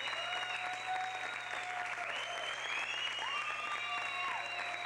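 Audience applauding steadily, with long high-pitched calls rising and falling over the clapping.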